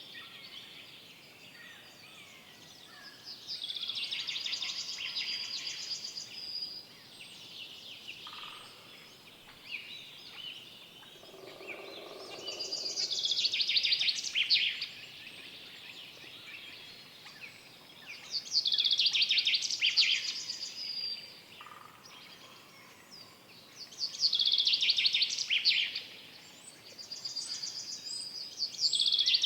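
Forest songbirds singing: a loud, rapid trilled song phrase about two seconds long, repeated five times every five to six seconds, with quieter chirps between and a short low call about twelve seconds in.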